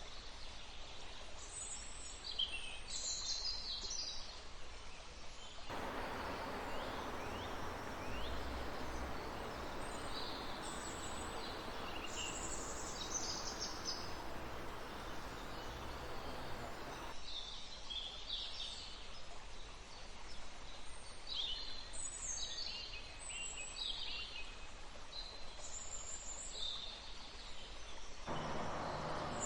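Many small forest birds chirping and trilling over the steady rush of a river. The rush of water grows much stronger about six seconds in, drops back again after about seventeen seconds, and returns near the end.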